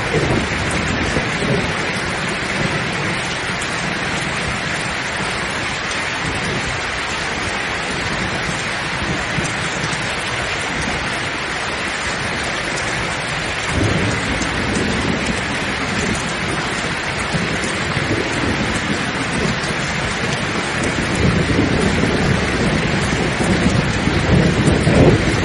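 Heavy rain falling steadily with rolling thunder in a thunderstorm. The low rumbles swell about halfway through and build louder near the end.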